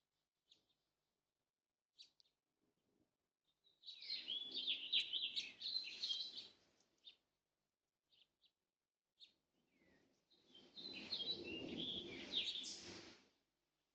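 Small birds chirping and twittering in two bursts of about three seconds each, one about four seconds in and one near the end, each over a rushing noise, with a few short single chirps in between.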